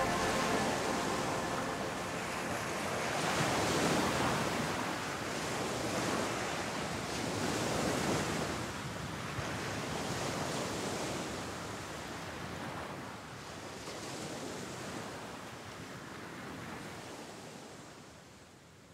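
Wind and sea noise, a steady hiss that swells a few seconds in and again around eight seconds, then dies away near the end.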